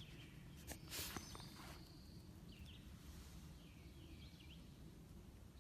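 Faint distant tufted titmice whistling, short curved notes repeated a few times, with two birds calling back and forth. There is a brief rustle about a second in.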